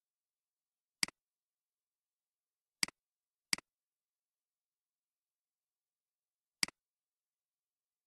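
Computer mouse clicks: four single clicks at irregular intervals, each a quick double tick of press and release.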